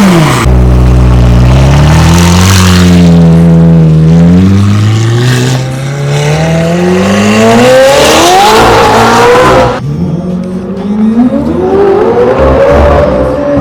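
McLaren 720S twin-turbo V8 with catless downpipes and a straight-pipe exhaust, running loud under hard acceleration: the engine note climbs and drops repeatedly as it pulls through the revs. The sound changes abruptly about half a second in and again near ten seconds, falling back to a lower note each time before rising again.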